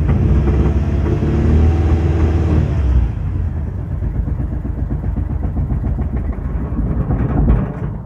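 Ford Mondeo Mk3 four-cylinder petrol engine running roughly at about 1000 rpm, misfiring and failing to hold idle, then cutting out near the end. The misfire is blamed on carbon-fouled spark plugs.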